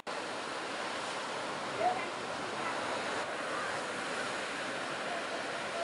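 Steady rush of breaking ocean surf, with one short high call or shout about two seconds in.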